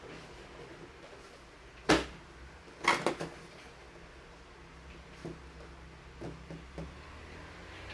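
Cardboard model kit boxes handled on a desk: a sharp knock about two seconds in, a cluster of knocks and rustling about a second later, then a few faint taps.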